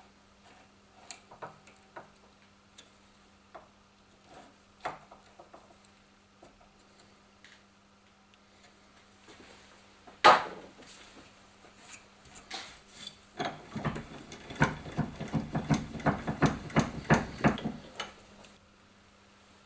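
Small metallic clicks and taps of a screwdriver working the screws of aluminium soft jaws on a Record No. 3 cast-iron bench vise. There is one sharp loud metal knock about ten seconds in. From about thirteen seconds in comes a quick run of clicking knocks, several a second, as the vise is worked and its jaws close, lasting about four seconds.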